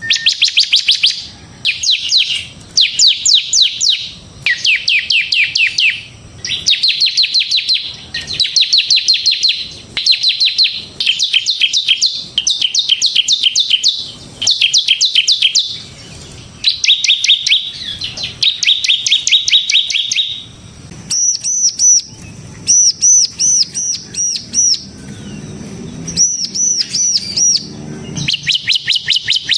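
Bar-winged prinia (ciblek) singing hard: loud, rapid, drill-like trills in phrases about a second long with short gaps. About two-thirds of the way through it changes to a series of clear, arched whistled notes, about three a second, then returns to the trills near the end.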